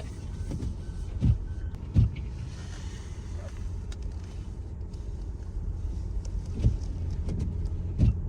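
Steady low rumble of a car heard from inside the cabin, with a few dull thumps, one just after a second in, another at two seconds and two more near the end.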